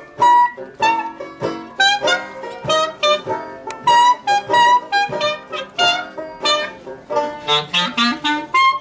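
Live jazz from a small band: a banjo picking a quick run of notes, with a clarinet playing alongside.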